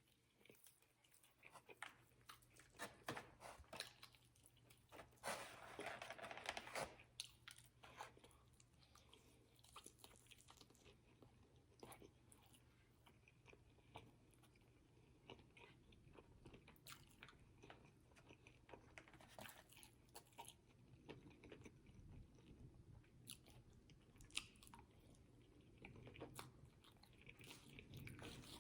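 A person chewing and biting fast food close to the microphone: faint, wet mouth sounds and crunches coming in short bursts with quiet pauses between.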